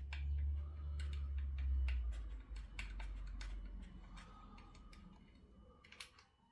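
Irregular light clicks and taps of a hand tool and small metal parts while the ignition coil bolts are undone on a chainsaw, over a low rumble that fades after about two and a half seconds.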